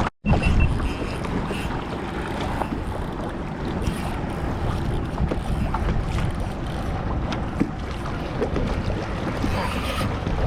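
Wind on the microphone and water moving against a fishing kayak on open sea, a steady rushing noise with faint scattered ticks. The sound drops out for a moment at the very start.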